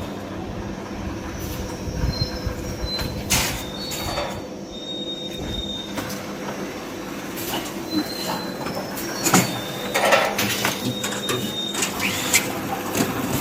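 Paper-tube (paper core) making machine running: a steady mechanical hum with brief high squeals and several short loud bursts of noise.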